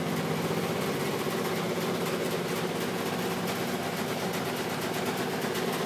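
Washing machine running: a steady mechanical hum and whir that holds even throughout.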